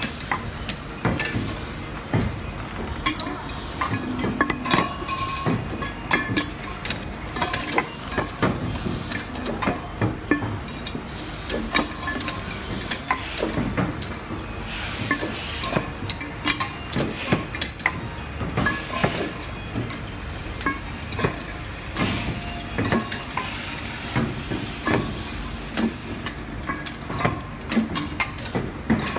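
Stainless-steel vacuum flasks clinking and knocking against one another in a rapid, irregular clatter as they are handled and jostle together on a labeling-machine conveyor, over the steady running noise of the machine.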